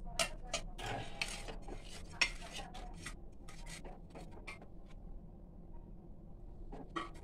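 Stainless steel plates being handled and moved, making a quick scatter of light clinks and scrapes. The loudest clink comes about two seconds in, and a couple more come near the end.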